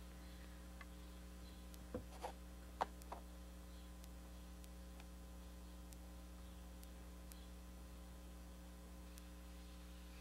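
Steady low electrical mains hum, with four short soft clicks about two to three seconds in.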